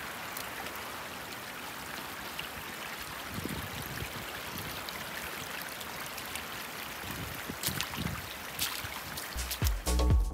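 Steady rush of a small mountain stream of running water. Electronic dance music with a heavy bass beat comes in about nine seconds in.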